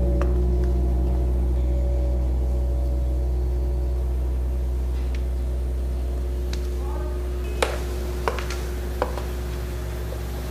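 Low sustained drone of dramatic background music: a deep held chord that slowly fades. Near the end come three short taps, under a second apart.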